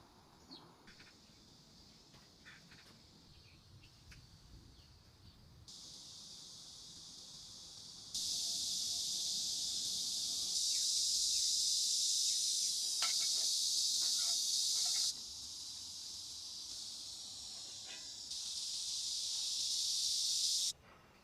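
Insect chorus, a steady high-pitched shrill that changes level abruptly several times, starting faint and getting much louder about eight seconds in. A few faint chirps and clicks are scattered underneath.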